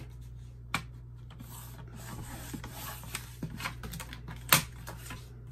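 Paper Studio sliding-blade paper trimmer cutting laminated cards: a scraping rasp as the cutting head is pushed along its rail through the laminate, with a sharp click about a second in and a louder one near the end.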